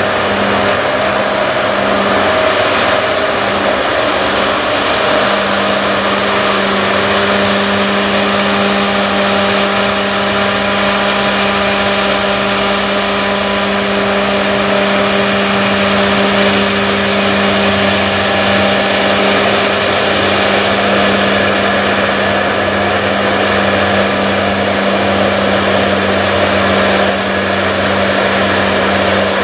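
John Deere X9 combine harvester working a wheat field: a steady engine and threshing-machinery drone with a constant hum that settles and holds even about five seconds in.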